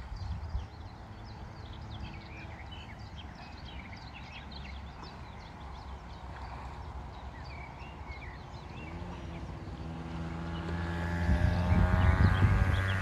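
Small birds chirping and singing in quick, short notes over a low rumble. From about nine seconds in, a passing engine's steady hum comes up and grows loud near the end.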